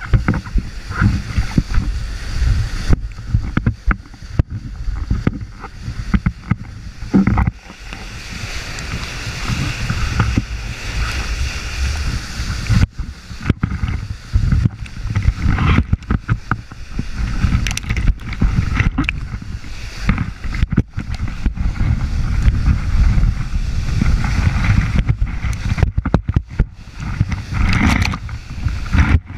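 River whitewater rushing and splashing over a pole-mounted GoPro, with heavy rumbling buffeting on the microphone. The sound drops out briefly several times as the camera is swamped.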